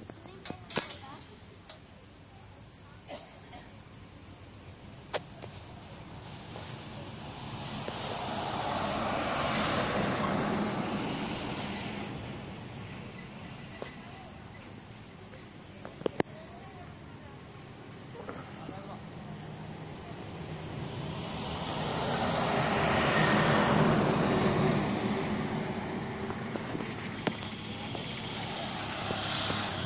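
A steady, high-pitched insect drone. Road vehicles pass twice, each swelling up and fading away, about ten and twenty-three seconds in.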